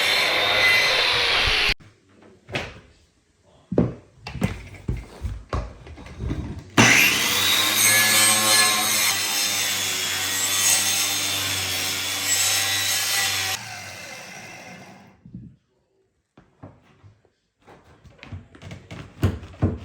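Power saw cutting wood, undercutting a door jamb so the vinyl plank flooring can slide underneath. The cut stops about two seconds in, a few knocks and taps follow, then the saw starts again about seven seconds in, its pitch rising as it spins up, runs for about seven seconds and stops. More light taps come near the end.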